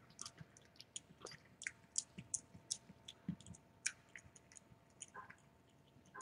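Cat eating wet food from a stainless steel bowl: faint, irregular chewing clicks.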